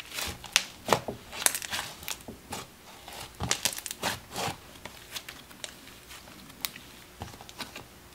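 Thick icy slime being stretched, folded and pressed by hand, giving irregular sizzly crackling and popping that thins out over the last few seconds.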